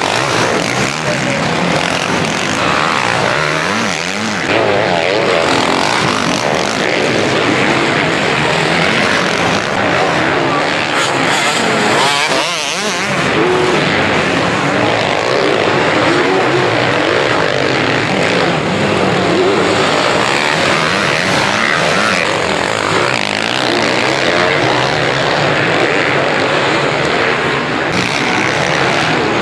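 Several motocross motorcycle engines running at once, their pitch wavering up and down as the bikes rev and shift around the track.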